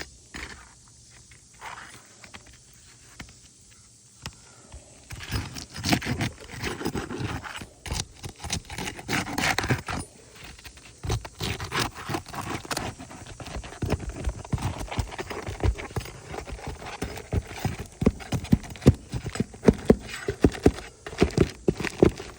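Asphalt roof shingles being pried up and worked loose by hand and tool, with a dense run of sharp clicks, knocks and scrapes. It starts about five seconds in and grows busier toward the end.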